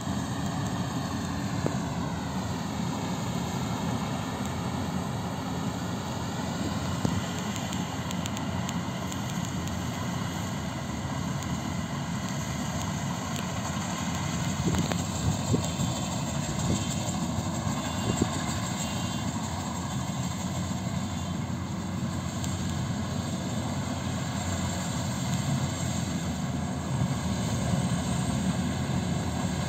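Combine harvester running steadily while it cuts a paddy crop: a continuous engine drone with a faint high whine that dips in pitch a couple of seconds in and then holds, growing a little louder about halfway through as the machine comes closer.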